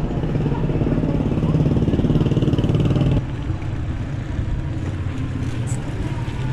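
Motor vehicle engine running close by in a narrow street, loudest for the first three seconds and then dropping away abruptly, leaving a lower traffic hum.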